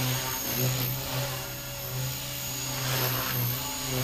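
Blade Fusion 180 electric RC helicopter flying: a steady high motor whine over the buzz of the rotors, its loudness swelling and dipping slightly as the helicopter moves about.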